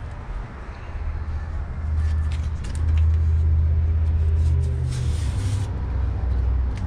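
Low rumble of a vehicle engine running, louder in the middle, with a short burst of hiss about five seconds in.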